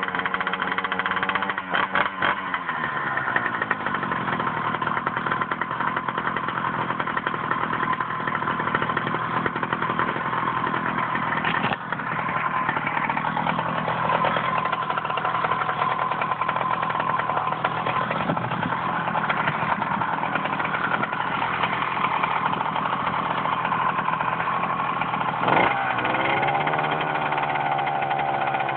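80cc two-stroke motorized-bicycle engine kit running through a banana-style expansion chamber exhaust, mostly at a steady idle. The revs drop back to idle in the first few seconds, and the throttle is blipped once, up and back down, near the end.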